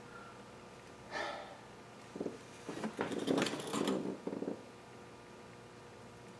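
Light clinks and rattles of hand tools being handled around the engine, in a short cluster after a brief hiss.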